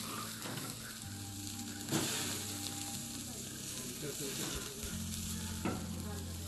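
Pork belly sizzling on a charcoal grill: a steady frying hiss, with one light knock about two seconds in.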